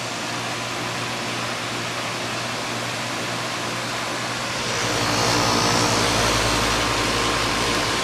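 A 2005 2.5-ton Lennox central air-conditioner condenser with a Copeland scroll compressor running: a steady rush of air from the condenser fan over a low steady hum. It runs normally in the owner's view. About five seconds in it gets louder and deeper as the microphone comes over the fan's outlet on top of the unit.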